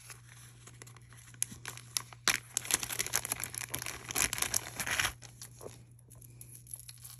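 Small plastic bag crinkling and crackling as it is handled and opened by hand to get the piece of jewelry out. It is a dense run of crackles for about four seconds, then it dies down.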